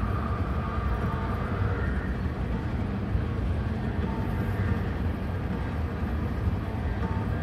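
City street noise: a steady low rumble of passing traffic.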